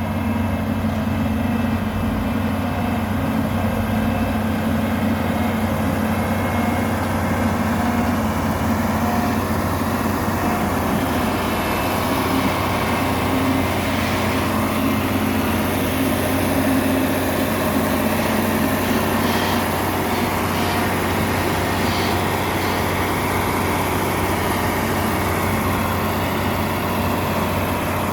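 Heavy diesel engine of a bulldozer running steadily, with a deep constant note and a few faint clinks in the middle.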